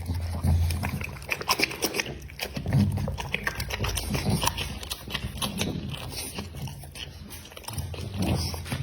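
American Pocket Bully dog chewing meat, with many short wet clicks of bites and mouth smacks and a few low sounds in between.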